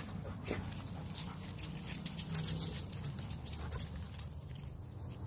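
Footsteps and dogs' paws crunching and rustling through dry leaf litter in irregular crackling steps, over a low rumble of handling noise.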